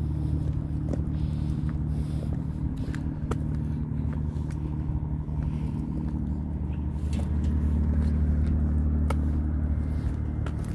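A steady low engine hum that grows louder about seven seconds in, with a few faint clicks over it.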